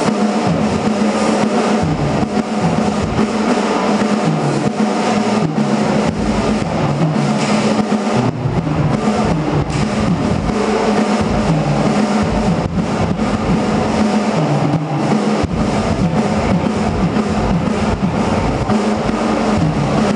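Drum kit played live with a band: loud, dense and distorted in the recording, with a low note held steadily underneath the drumming.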